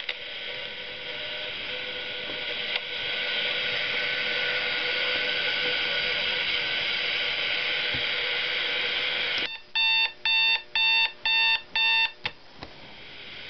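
Hello Kitty tea cup alarm clock radio hissing with FM radio static that builds over the first few seconds. About nine and a half seconds in, its alarm goes off: a quick run of electronic beeps, about two a second, that stops near the end as the snooze button on the lid is pressed, and the static comes back.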